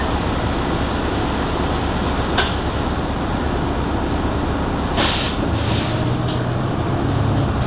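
Inside a New Flyer XD60 articulated diesel bus standing at idle, with a sharp click about two seconds in and short hisses of air around five seconds in. The engine note then grows as the bus starts to pull away.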